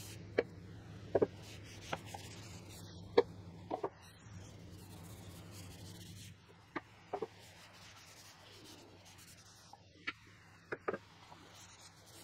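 About a dozen light, sharp taps and clicks, some single and some in quick pairs, of objects being handled and set down, over a low steady hum that stops about six seconds in.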